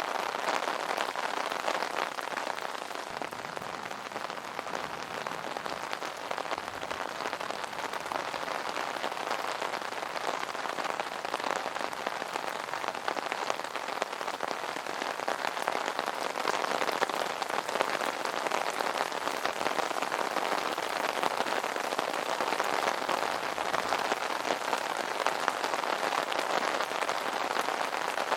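Steady rain drumming on an umbrella canopy, a dense patter of many small drop impacts.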